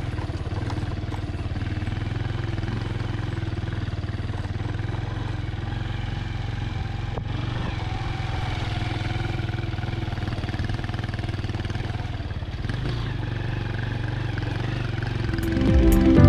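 A motorcycle engine running steadily as the bike rides along. Music comes in near the end.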